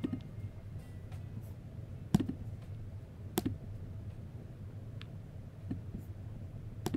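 A handful of sharp single computer clicks, a second or more apart, over a low steady hum.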